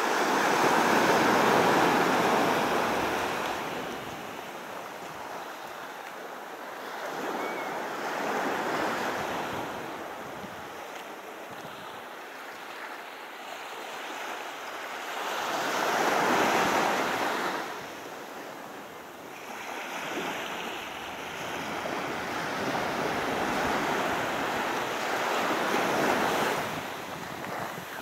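Sea surf breaking and washing up on a beach, swelling and falling away in slow waves about every eight seconds.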